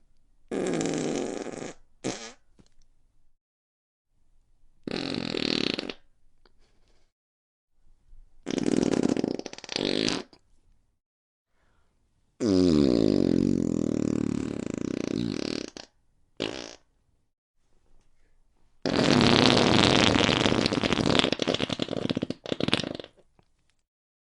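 Five farts, one after another with short silent gaps between them. Each lasts one to four seconds; the fourth drops in pitch as it starts, and the last is the longest and most drawn out.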